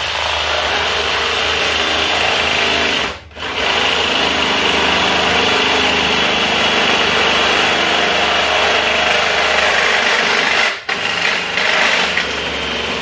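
Cordless drill driving a reciprocating-saw attachment, its blade sawing back and forth through copper pipe with a steady rasping buzz that stops briefly twice, about three seconds in and near the end. The stock metal blade is very dull, so the cut goes slowly and takes a lot of effort.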